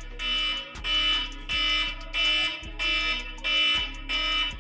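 Electronic timer alarm going off: a steady repeating beep pattern, about one and a half beeps a second, signalling that the countdown has run out.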